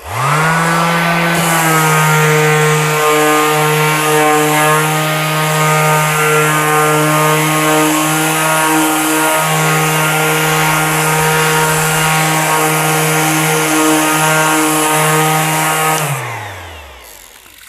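Ryobi P411 18-volt cordless 5-inch random orbital sander switched on and spinning up at once, then running steadily with a hum and the hiss of the sanding disc on wood. About sixteen seconds in it is switched off and winds down, its pitch falling away.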